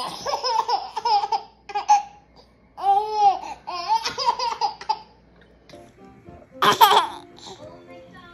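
A baby laughing and squealing in three high-pitched spells, with music coming in underneath near the end.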